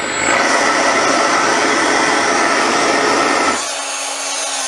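Small homemade jet engine running with a steady loud rushing roar, the combustion flame blasting from the exhaust. About three and a half seconds in the burning cuts off abruptly, leaving the engine's electrically driven compressor whining steadily on its own.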